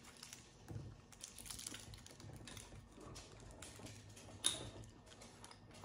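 Faint, irregular small clicks and rustles of a cream-filled candy twist being handled and bitten, with one sharper click about four and a half seconds in.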